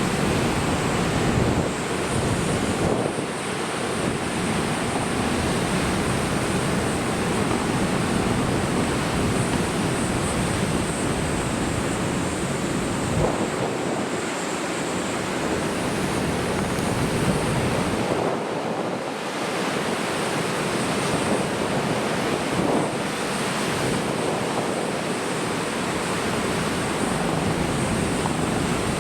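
Large typhoon swell breaking and surging on the shore: a continuous rush of surf, with wind buffeting the microphone in a low rumble that briefly drops away twice.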